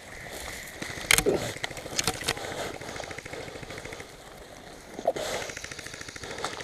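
Airsoft guns firing: several sharp single cracks, then a rapid buzzing full-auto burst starting about five seconds in.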